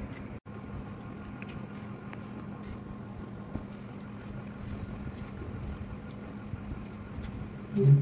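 Steady low background rumble with a faint hum. Near the end comes a short, louder low-pitched sound.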